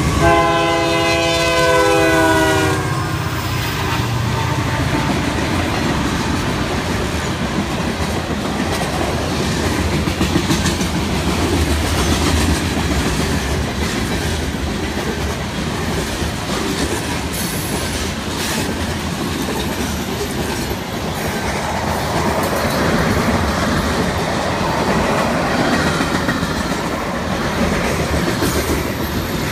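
Canadian Pacific freight train passing: the diesel locomotive's horn sounds for about two and a half seconds, then the engine rumbles by and the freight cars roll past with a steady rumble and clatter of wheels on the rails.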